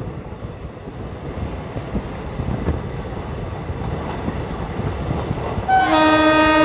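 DEMU (diesel-electric multiple unit) train running along the track with a steady low rumble; near the end its horn sounds one blast of about a second.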